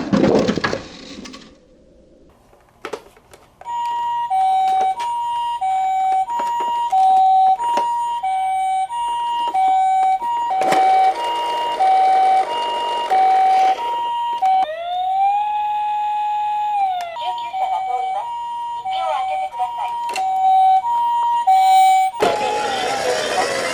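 Japanese ambulance two-tone siren, the high-low "pee-po" switching tones about every half second. It starts a few seconds in and is broken midway by a wail that rises, holds and falls. A few knocks sound through it.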